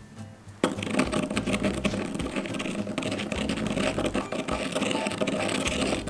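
Wooden pestle grinding coarse salt in a stone mortar: a rapid, dense grinding that starts suddenly just over half a second in and keeps going without a break.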